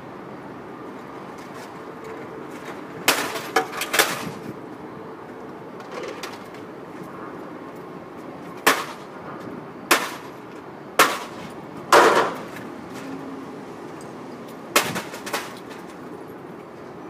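A series of sharp bangs and clacks of hard objects being struck or slammed. There are about nine hits at irregular intervals: a quick cluster of three, then single hits a second or so apart, then a pair near the end. A steady background noise runs underneath.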